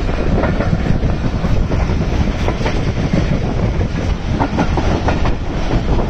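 Pakistan Railways train running along the track, heard from on board: a steady rumble with the wheels clicking over rail joints every so often.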